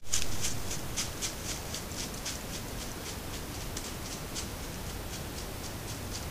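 Steady outdoor hiss picked up by a trail camera microphone, with scattered light ticks and patters in leaf litter a few times a second. The ticks are thickest in the first few seconds, thin out, then pick up again.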